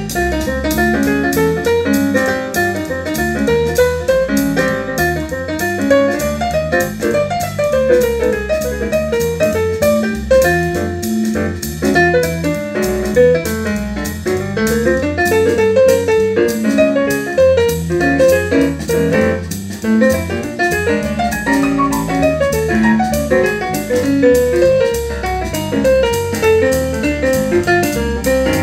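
Jazz piano music with bass and a steady drum beat, played back through a pair of Infinity RS 1001 two-way bookshelf speakers in a listening test.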